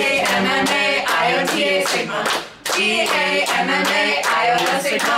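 A small group singing a chant together while clapping in time, with a brief break in the singing about halfway through.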